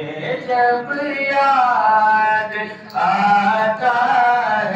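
A man sings an unaccompanied naat, an Urdu devotional poem in praise of the Prophet. He draws out long, wavering notes, with a short breath break about three seconds in.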